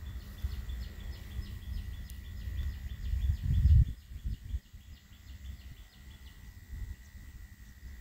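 Low rumbling knocks and handling noise as a cut-off machine's armature is handled and set into a bench vise, loudest a little before halfway and quieter after. A faint, rapid high chirping, about four chirps a second, runs alongside for most of it and then stops.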